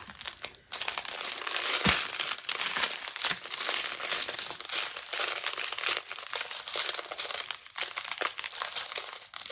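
Small plastic bags of diamond-painting drills being handled and sorted: a continuous crinkling of thin plastic with many small clicks throughout.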